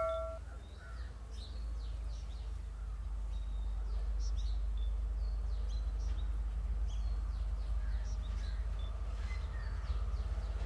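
Birds chirping in short scattered calls over a steady low rumble, with the ring of a struck bell dying away at the very start.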